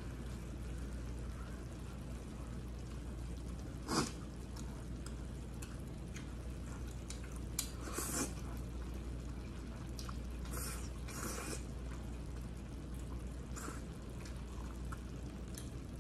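Close-up eating sounds of a person eating bulgogi with glass noodles: wet mouth sounds, a sharp sound about four seconds in, a slurp of glass noodles about eight seconds in, and two longer bursts around ten to eleven seconds, over a steady low hum.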